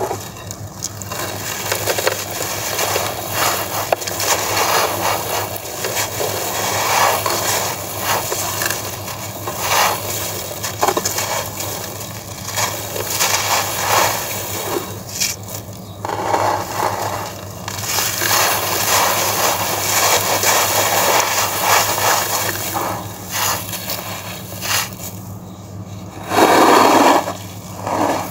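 Hands crushing moulded blocks of dry stony sand: gritty crunching and crackling as the blocks break, with loose grit pouring down through the fingers onto the pile. There is a louder stretch of crunching near the end.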